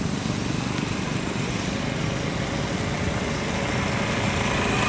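A small engine running steadily, growing louder near the end.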